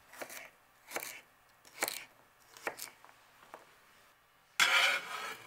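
Kitchen knife chopping young ginger on a plastic cutting board: five short knife strikes, a little under a second apart. Near the end comes a louder, noisy rasp lasting under a second.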